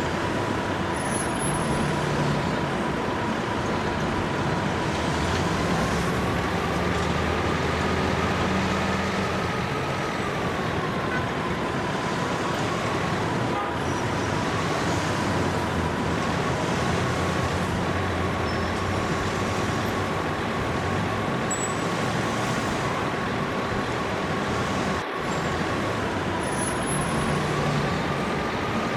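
Heavy vehicle engine running steadily, with a thin whine that rises slightly in pitch twice.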